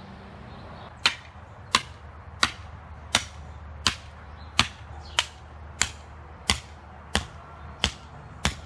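Hammer driving a wooden stake into the ground: about a dozen evenly spaced strikes, roughly one and a half a second, starting about a second in.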